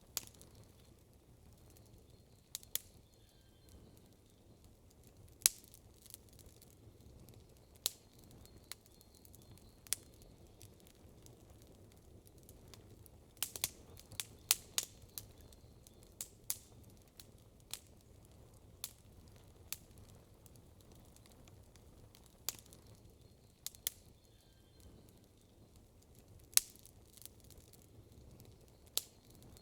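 Wood campfire crackling: sharp, irregular pops and snaps, with a quick run of them about halfway through, over a faint low steady background noise.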